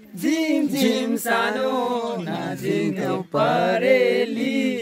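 A man singing a Nepali folk-style song unaccompanied, in long held melodic phrases with a short break about three seconds in.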